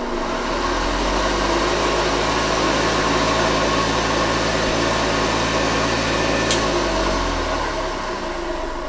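Vintage Hoover upright vacuum cleaner's motor running at full speed, a steady hum over a rush of air. About six and a half seconds in there is a click and the motor winds down, its hum sinking in pitch, as it is switched off.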